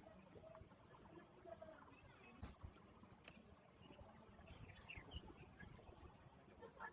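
Faint, steady, high-pitched insect trill, with a single sharp click about two and a half seconds in.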